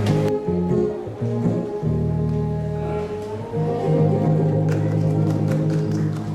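Instrumental music: a line of held low notes changing about every second, with a melody above.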